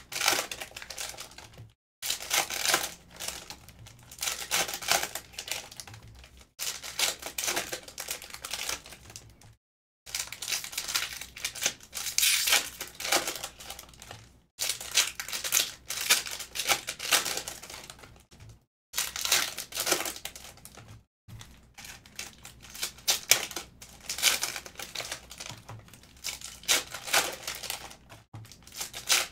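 Plastic-foil wrappers of 2022 Optic football hobby card packs being torn open and crinkled by hand, again and again. The crackling comes in clusters of a few seconds with short breaks between them.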